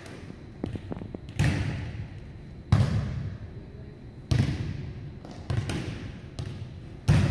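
Volleyballs being struck and bouncing on a hardwood gym floor: a string of sharp smacks every second or two, each ringing on in the hall's echo, the loudest about a third of the way in and near the end.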